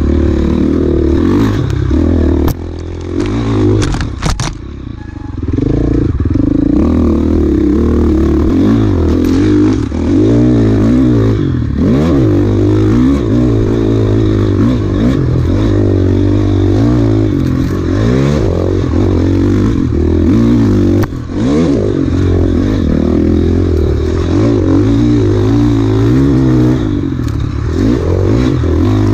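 Enduro motorcycle engine under hard riding, its pitch rising and falling over and over as the throttle opens and closes. About three to five seconds in the throttle drops off briefly and there are a few sharp knocks.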